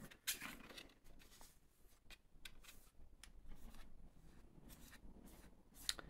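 Faint, scattered small clicks and taps of craft materials being handled at a table, with a sharper click just before the end.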